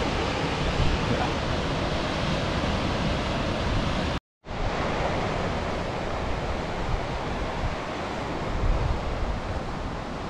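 Steady rushing noise that cuts out completely for a moment about four seconds in, then resumes.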